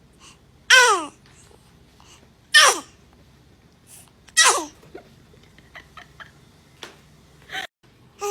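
A baby sneezing three times, about two seconds apart, each a sharp high burst that slides down in pitch. A few faint short squeaks and clicks follow.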